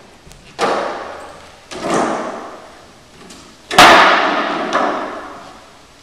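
A series of sudden struck hits, each ringing out and fading over about a second. There are three strong ones, the loudest nearly four seconds in, with a few fainter hits between them.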